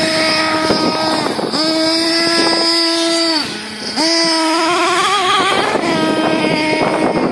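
Small nitro engine of a Thunder Tiger MTA4 S28 RC truck with a twin exhaust, running at a high, steady whine. About three and a half seconds in it drops briefly to idle, then revs back up with a wavering pitch and settles high again.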